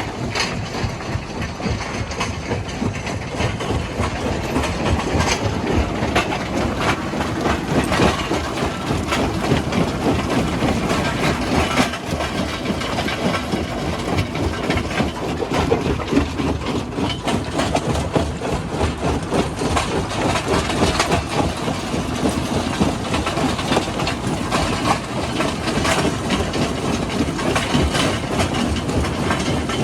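Heavy rock-handling machinery at work: a continuous dense clatter of rocks knocking and grinding over a steady engine-like din, with irregular sharp knocks throughout.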